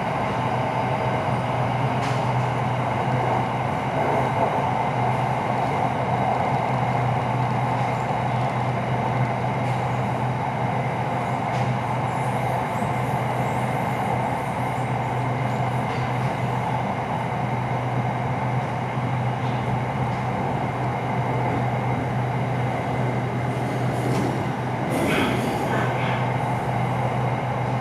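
SRT Red Line electric commuter train, a Hitachi AT100 unit, running steadily with a continuous rumble of wheels and motors and a low hum. There are a few short squeaks or clicks near the end.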